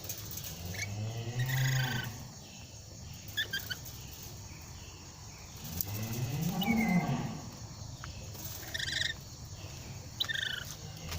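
Two long, low moo-like calls, each rising and then falling in pitch, with short high bird chirps scattered around them.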